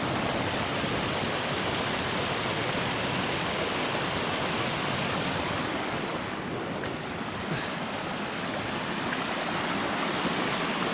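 Stream water flowing under a small footbridge: a steady, even rush of running water.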